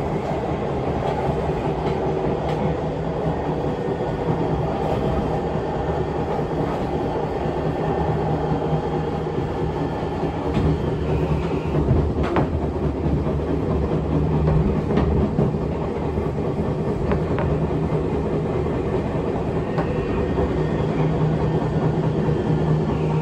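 Seibu 6000-series electric train heard from inside the car: a steady running rumble and motor hum, with occasional clicks of the wheels over rail joints.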